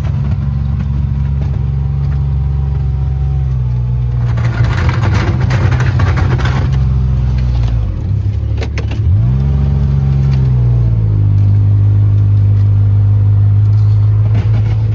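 Engine of a small snow-plowing machine running under load. Its pitch drops briefly about two-thirds of the way through, then picks back up and holds steady and a little louder. A rushing noise rides over it for a few seconds in the middle.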